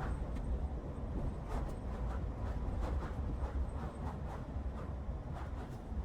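Car driving at speed: steady low road rumble, with frequent light ticks about two or three times a second.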